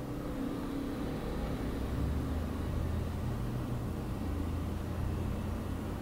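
Wacom Cintiq Companion 2 tablet's cooling fan running with a steady low whir while the machine boots, growing a little louder about two seconds in.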